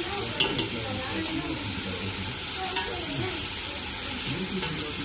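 Sliced onions sizzling steadily in hot oil and ghee in a large aluminium pot while a spatula stirs them, with a few sharp taps and scrapes against the pot. The onions are being fried down until golden brown.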